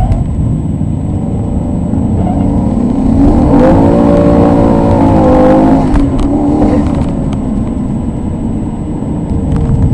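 Maserati 3200 GT's twin-turbo V8 heard from inside the cabin, accelerating, with its revs rising about three seconds in and dropping away near six seconds as it eases off, over a constant low rumble of road and cabin noise.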